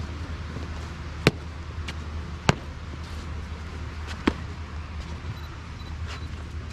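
Three sharp stamps of a cadet's drill boots on the hard court surface as he marches up and stamps to a halt, unevenly spaced over a steady low hum.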